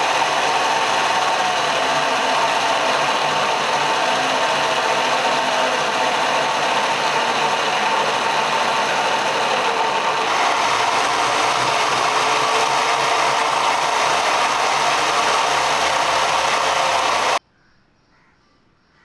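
Electric power tool, likely the angle grinder of the build, running steadily with a whining tone, then cutting off abruptly near the end.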